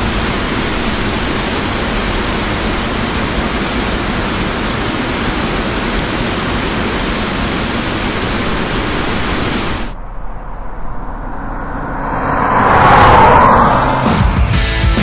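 Water rushing over a low weir in a steady, even hiss. Near the end it gives way to a quieter roadside background, and a car passes on the highway, swelling up and fading away.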